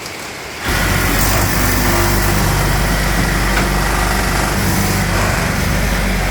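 A small engine starts running about a second in, a loud, steady drone that replaces the hiss of rain.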